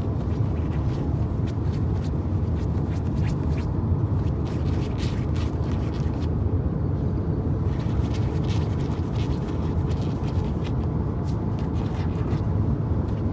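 A dog's claws scratching and digging at a fabric pillow in quick, irregular scrapes, over a steady low rumble.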